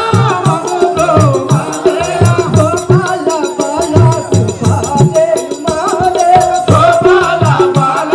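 Telugu folk-theatre music: a wavering melody over a steady drum beat, with rattling percussion clicking along.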